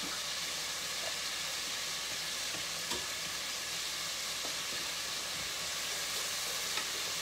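Chicken nuggets deep-frying in a pot of oil: a steady sizzle, with a few faint clicks.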